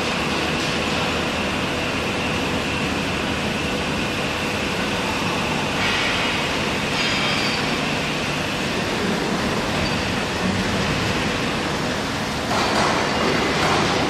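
Steady, loud industrial noise from a medium-frequency induction melting furnace pouring molten metal into a crane-hung ladle, with a thin steady whine running through it. The noise surges louder about six seconds in and again near the end.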